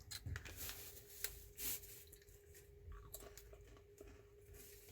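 A person biting into and chewing dry, crunchy crackers, with crisp crunches mostly in the first two seconds and fainter chewing after.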